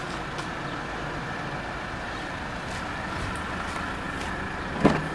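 Steady vehicle and traffic noise, with one sharp knock near the end.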